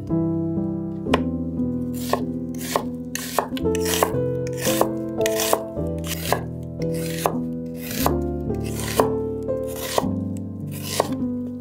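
Chef's knife slicing a red onion on a wooden cutting board: a steady run of sharp cuts, about two to three a second, over soft background music.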